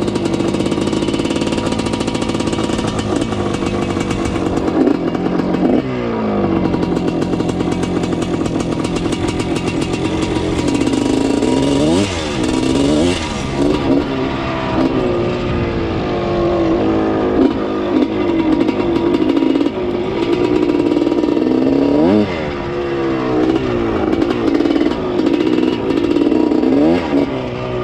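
A 1979 Yamaha IT 250 dirt bike's two-stroke single-cylinder engine being ridden, its pitch rising and falling again and again as the throttle opens and closes, with several sharp revs.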